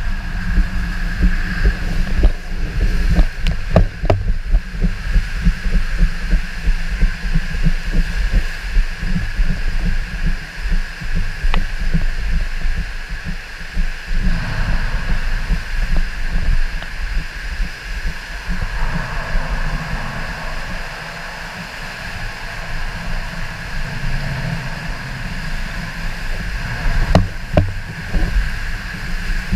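A raft on Poseidon's Peril, a Van Egdom raft water slide, rushing through its plastic tube and bowl: running water and a low, constant rumble with many small bumps as the raft slides over the slide's joints. A steady high-pitched hum runs underneath. The sound smooths out about halfway through and gets bumpier again near the end.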